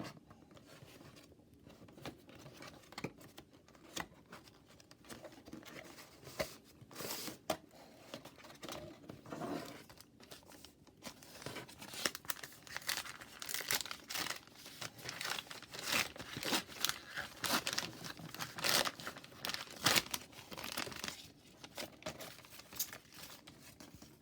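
A BeeHive hockey card pack's wrapper being torn open and crinkled by hand, with cards shuffled out of it. The rustling and crackling come in irregular bursts and grow busier after about halfway.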